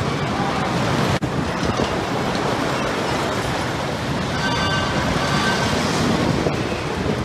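Wooden roller coaster train running along its track: a steady rumble, with a brief drop-out about a second in.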